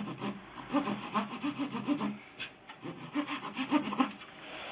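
Fine-toothed razor saw cutting through a thin wooden capping strip of a wing rib, in quick back-and-forth strokes, with a short pause a little past halfway.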